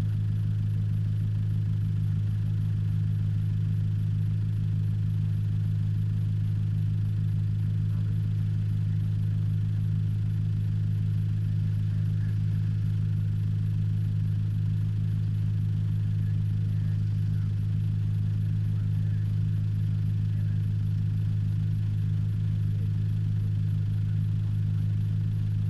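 Land Rover Discovery's engine running at steady low revs, a constant drone that holds the same pitch and level as the vehicle crawls along a rutted dirt track.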